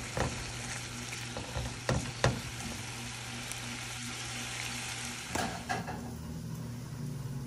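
Beef strips and minced garlic sizzling in a frying pan as they are sautéed, with a few sharp clicks of the utensil stirring them. The sizzle cuts off about five and a half seconds in, leaving a faint low hum.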